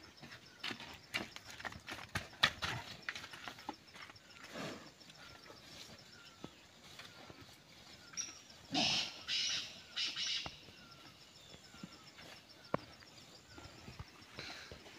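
Cows shifting about on dry, straw-strewn ground: scattered light knocks and scuffs of hooves, with a few louder noisy bursts about halfway through. A small bird chirps over and over in the background.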